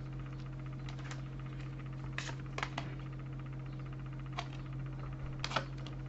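Light, irregular clicks and taps of tarot cards being handled and laid down on a table, about ten in all and bunched in two small groups, over a steady low electrical hum.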